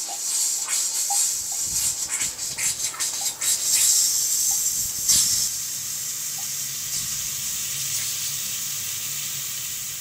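Bathroom sink faucet running with the hot tap open while the water heater refills. It hisses and spits unevenly for the first few seconds, the sign of air being purged out through the line, then settles into a steady stream into the basin.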